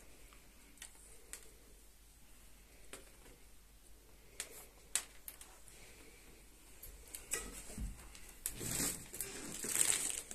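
Scattered light clicks and taps as the plastic parts of a TV screen protector are handled, then rustling and crinkling from about seven seconds in, growing louder near the end.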